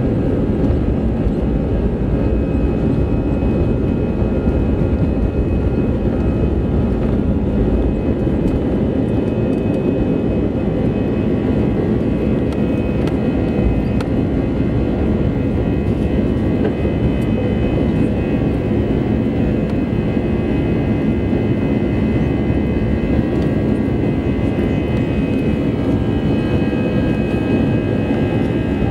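Airbus A320's jet engines at takeoff thrust, heard from inside the cabin over the wing through the takeoff roll, lift-off and initial climb. The sound is a loud, steady rumble and rush, with a thin whine from the engines coming through more clearly near the end.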